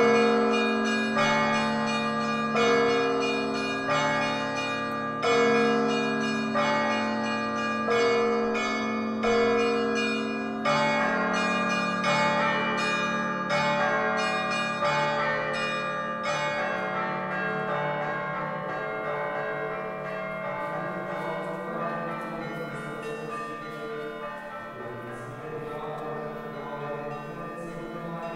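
Church bells of different pitch struck in turn, about one stroke every second and a quarter. The strokes stop about 16 seconds in and the bells are left to ring out and fade.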